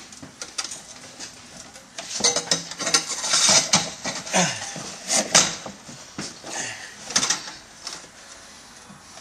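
Stainless steel exhaust pipe sections clanking and scraping as they are handled and worked into place under the car, as irregular metallic knocks and rasps, busiest in the middle of the stretch.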